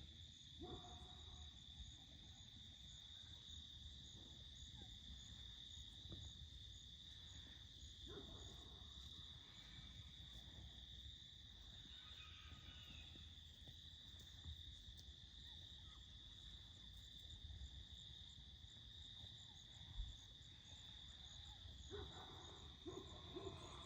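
Faint, steady chorus of crickets: a continuous high trill with a fainter pulsing chirp above it, over a low rumble of wind and background. A few faint soft rustles come through now and then.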